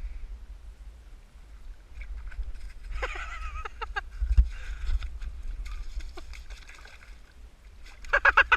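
People's voices exclaiming over a steady low rumble, with a thump about four seconds in and a burst of rapid, pulsed laughter near the end.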